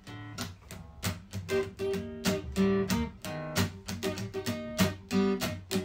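Instrumental music: guitar strummed in quick repeated strokes over a bass guitar line.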